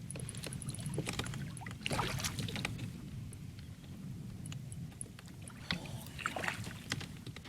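Scattered clicks and knocks of gear being handled aboard a pedal fishing kayak, over a steady low rumble, with small clusters of rattling about two seconds in and again near the end.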